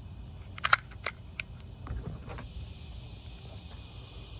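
A few short, sharp clicks and taps of handled pistol parts, a Glock 9mm slide and spare barrel, in the first two and a half seconds, then only steady low background noise.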